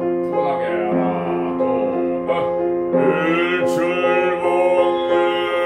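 A man singing sustained notes in a classical, bel canto style with piano accompaniment. He changes notes a few times and then holds one long note from about three seconds in.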